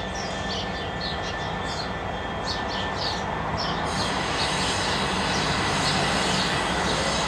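Freight train of autorack cars rolling past, a steady noise of wheels on rail that grows a little louder about halfway through. A bird chirps repeatedly over it.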